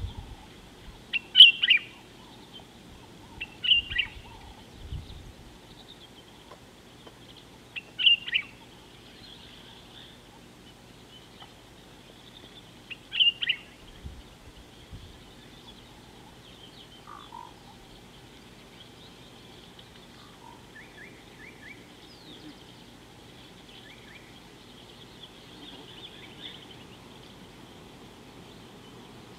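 A bird gives short, sharp calls four times, a few seconds apart, then fainter chirps, over a faint steady high-pitched background hum. A few soft low thumps come between the calls.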